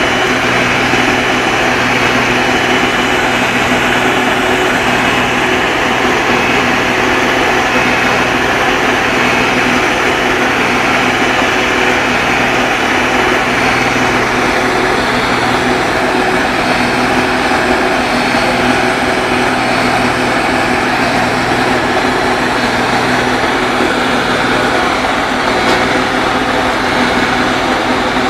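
Diesel excavator engine running steadily at a constant speed, a loud, even hum that does not change.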